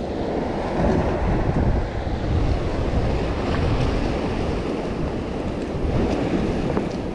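Steady wind noise on the microphone over the wash of waves around a small boat.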